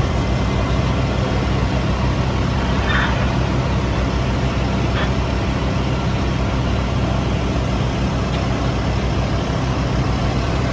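Fire trucks' diesel engines running steadily, a loud, even low drone.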